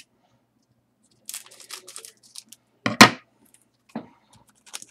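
Trading card pack handled and torn open: scattered crinkly rustles of the wrapper, then one sharp loud rip about three seconds in, followed by a few small clicks.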